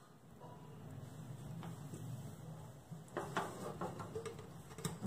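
A pressure cooker's lid being twisted and unlocked from the pot by its handles once the pressure has gone down: a few faint metal clicks and scrapes past the middle and a sharper click at the very end. A faint low hum runs underneath.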